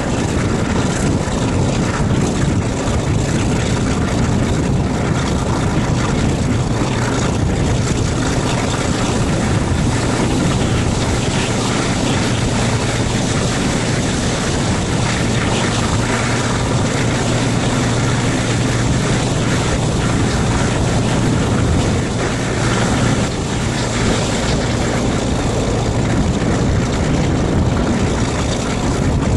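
Class 42 Warship diesel-hydraulic locomotive hauling a train on its single working engine, a steady low drone with wind rushing past, heard from the leading coach window.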